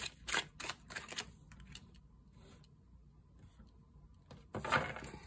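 A tarot deck being shuffled by hand: a quick run of card clicks and flutters in the first second or so, then a pause. Near the end comes a louder swish as a card is drawn from the deck and laid on the table.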